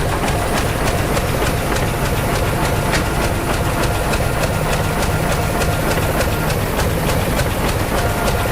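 Crawler bulldozer's diesel engine running steadily under a rapid, even clatter of its steel tracks.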